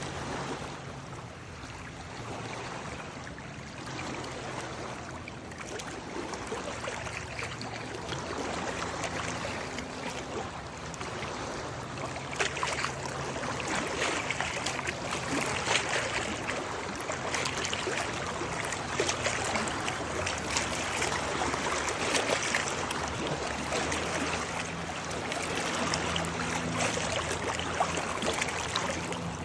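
Water flowing and splashing, like a small stream over stones, with many small splashes in a continuous rush that grows louder about twelve seconds in.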